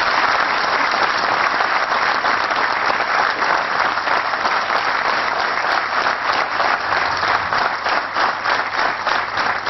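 An audience applauding: many hands clapping in a dense, steady patter that eases off near the end.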